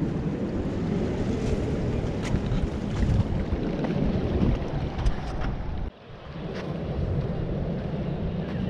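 Wind buffeting the microphone in a steady low rumble, with surf washing over the rocky shore beneath it. The sound drops out abruptly about six seconds in and then builds back up.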